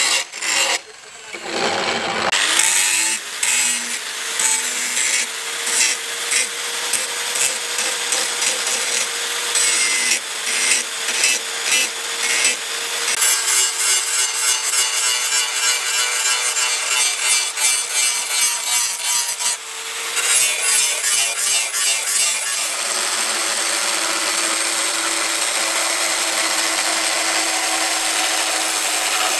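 Electric angle grinder grinding a steel knife blade: a steady motor whine under a rasping grind that swells and fades with each pass, after a brief lull near the start. About twenty seconds in it changes to a more even, continuous grind from an angle grinder with an abrasive disc.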